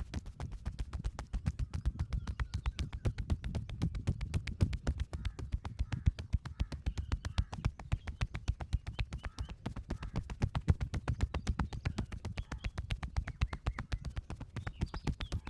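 Percussive massage: hands striking a person's body in a fast, even rhythm of about seven slaps a second, each a dull thud.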